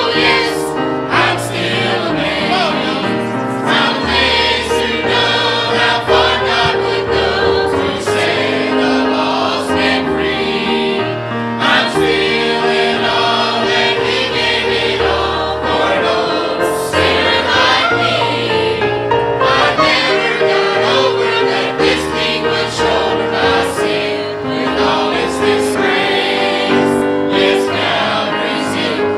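A mixed church choir of men and women singing a gospel hymn together, with steady held low notes underneath.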